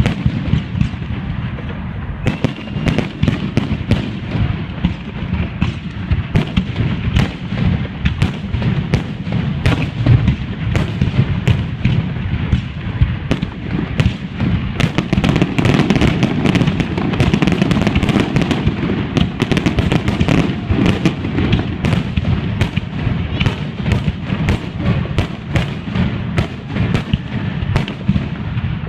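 Fireworks display: a continuous barrage of shells bursting, with many rapid sharp cracks and pops over a steady low rumble of booms.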